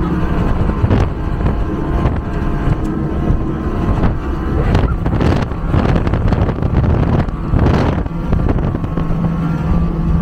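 A 2003 Mercury 250 EFI V6 two-stroke outboard running at high speed, with wind rushing over the microphone that gusts louder about halfway through.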